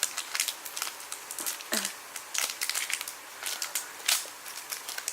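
Foil wrapper of a Pokémon trading card booster pack crinkling and crackling irregularly as the pack is torn open and handled, with a few louder crackles near the start and around two and four seconds in.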